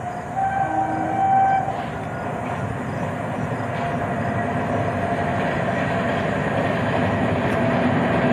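An Indian Railways locomotive sounds one horn blast of about a second near the start. Then it keeps running on the track with a steady rumble that slowly grows louder.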